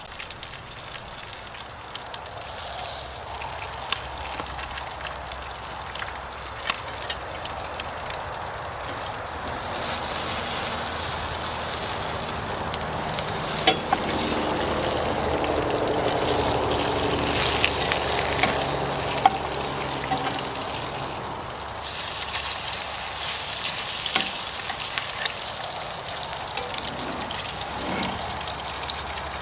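Burgers and bacon sizzling over a hot charcoal grill, a steady hiss with scattered pops and crackles.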